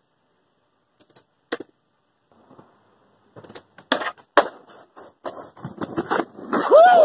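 Skateboard rolling on concrete, then two sharp clacks as it pops onto a steel stair handrail, followed by a rough metal grind with repeated knocks down the rail. Near the end, a short squeal that rises and falls in pitch.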